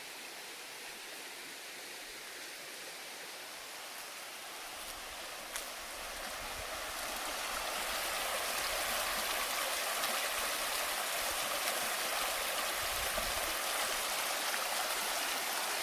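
Stream water running, a steady rushing hiss that grows louder from about five to eight seconds in, then holds steady.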